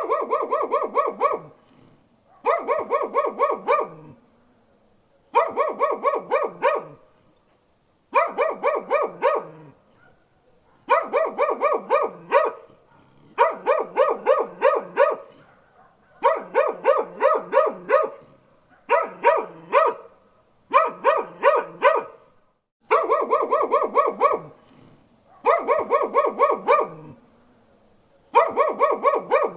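A dog barking in rapid volleys of several barks each, repeating about every two to three seconds with short pauses between.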